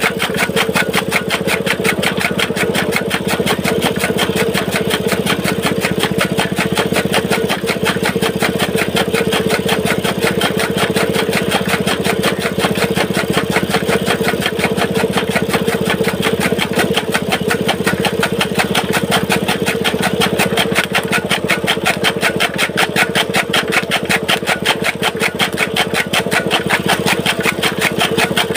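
Small petrol engine running steadily with a fast, even beat, belt-driving a chaff cutter (toka) as green fodder is fed in and chopped.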